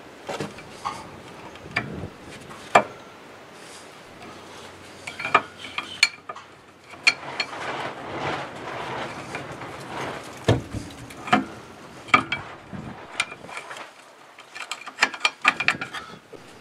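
Flat screwdriver prying and scraping at rusted rear brake pads stuck tight in the caliper bracket of a 2009 Hyundai Elantra: irregular metal clicks, clinks and scrapes, with a quick run of clicks near the end.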